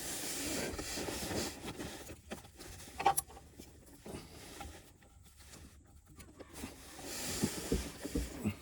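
Ratchet and oxygen-sensor socket being worked on a car's front heated oxygen sensor: rustling and scraping of the tools, with a sharp click about three seconds in and several short knocks near the end.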